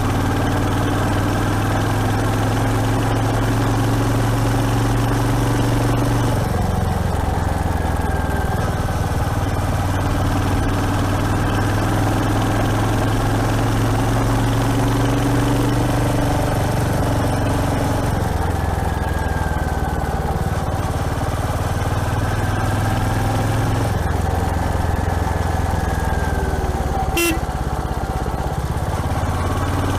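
Royal Enfield Hunter 350's single-cylinder engine running under way, its note shifting a few times with throttle and gear changes. A brief sharp sound cuts in near the end.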